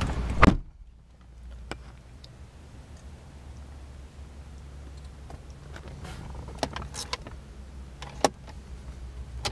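Car door on a 2004 Audi A8 L pulled shut with a loud thud about half a second in, cutting off the outside noise. Then a quiet cabin with a steady low hum and a few light clicks as console trim compartments are opened.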